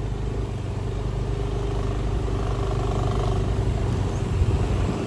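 Motor scooter engine running steadily while riding over a rough dirt road, with a low rumble from the ride and a single thump a little past four seconds in.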